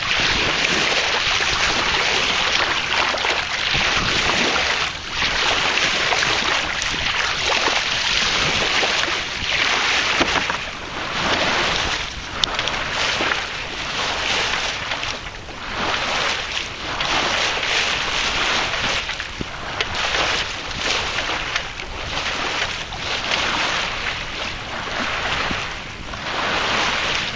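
Wind on the microphone mixed with water rushing and splashing along a Ranger 23 sailboat's hull under sail, the noise rising and falling in uneven surges.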